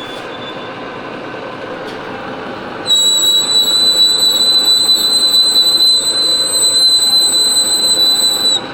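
Metal lathe running, then about three seconds in a loud, steady high-pitched squeal starts as the threading tool cuts into the steel part at a 6 thou depth of cut, stopping abruptly near the end.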